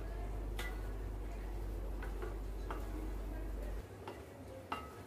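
Wooden spatula stirring a thick spinach-and-pumpkin curry in a metal pan, knocking against the pan's side with a few sharp clicks. A low steady hum underneath cuts off suddenly about four seconds in.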